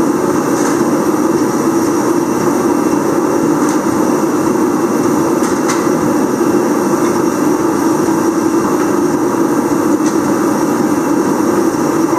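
Shop heater running loudly and steadily, with a few faint clicks over it.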